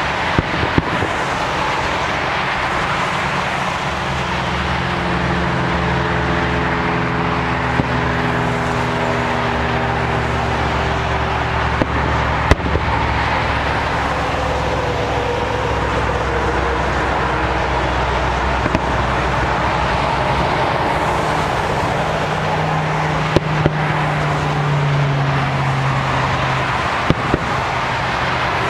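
Steady road-traffic noise with a vehicle engine humming for several seconds, broken by a handful of sharp, isolated firework bangs.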